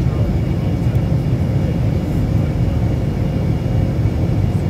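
Steady jet airliner cabin noise in flight, heard at a window seat beside the engine: a constant low rumble of the jet engine and rushing air, with a faint steady hum on top.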